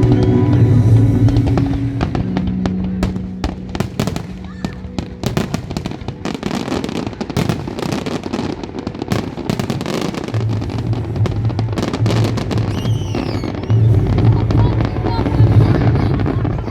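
Fireworks bursting, with dense crackling and popping thickest in the middle, over music playing with a pulsing low beat in the second half.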